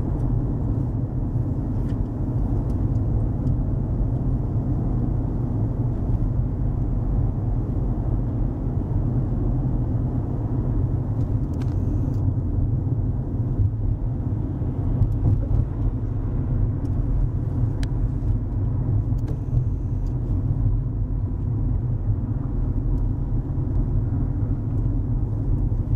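Steady low rumble of road and engine noise inside a moving car's cabin at freeway speed.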